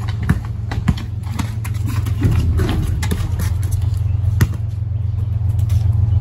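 Basketball bouncing on a concrete driveway, a few sharp bounces, the loudest about four seconds in, over a low steady rumble that grows slowly louder. A short shout comes about halfway through.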